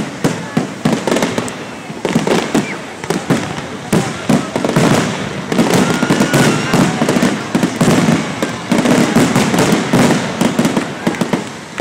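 Aerial fireworks bursting in quick succession, a dense run of bangs and crackling, picked up by a phone microphone.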